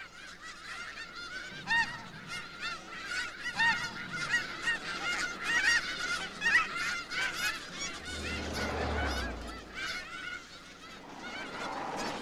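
A large flock of snow geese calling, many short overlapping honks in a dense chorus that thins out about two-thirds of the way through.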